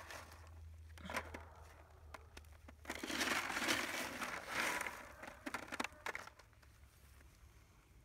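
Gloved hand rubbing and crushing dry dirt clods across the plastic grid screen of a homemade soil sifter. The gritty scraping and crumbling is loudest for about two seconds in the middle, with scattered small clicks of soil and pebbles around it.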